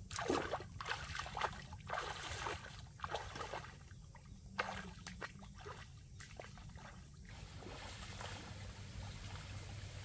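Bare feet wading through shallow muddy water, sloshing and splashing with each step about twice a second. The splashing stops about seven seconds in, leaving a faint steady hiss.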